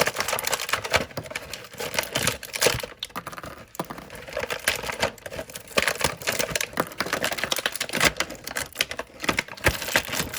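Toy pieces being pulled out of plastic packaging: a loud, dense run of irregular plastic clicks, snaps and crinkling.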